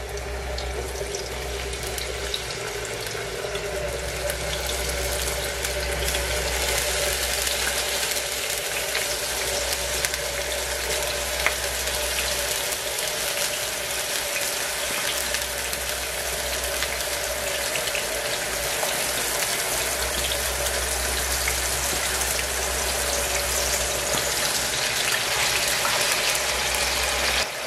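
Hot oil sizzling steadily in a frying pan as peeled potato pieces fry, getting slightly louder as more are added, with a steady hum underneath.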